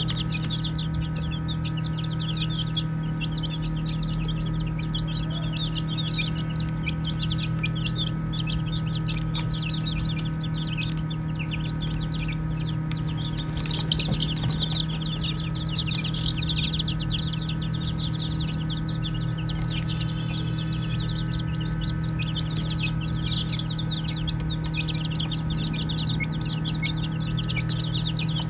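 A flock of baby chicks peeping without pause, many short high chirps overlapping, over a steady low hum.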